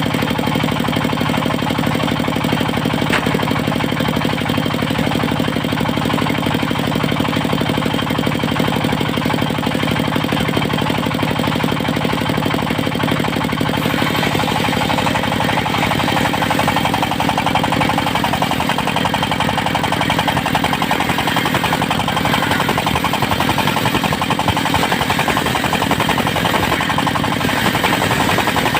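Diesel engine of a portable circular sawmill running steadily with a rapid knocking beat, driving the saw blade. About halfway through, the sound turns harsher.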